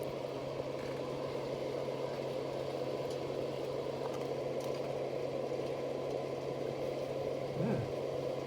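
Steady low machine hum with a constant drone, with a few faint ticks.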